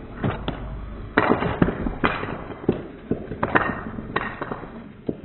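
Wooden Jenga blocks being knocked off a tower by Nerf foam darts: a string of irregular knocks and clatters as the blocks strike one another and fall, heard slowed down in slow-motion playback.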